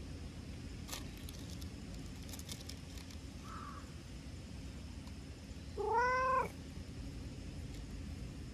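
Brown-tabby-and-white cat giving one short meow about six seconds in, its pitch rising then falling.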